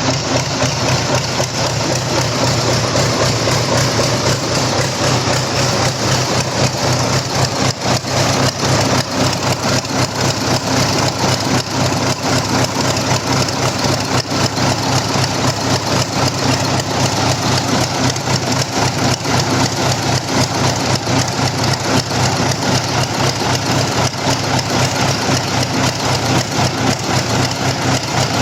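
An engine running steadily at a constant speed, with a fast, even pulse and no revving.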